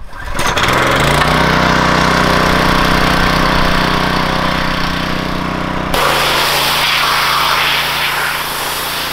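DuroMax 3,100 psi gas pressure washer, its small engine running steadily. About six seconds in the sound changes sharply, and the hiss of the high-pressure water jet hitting the bus's metal body joins the engine.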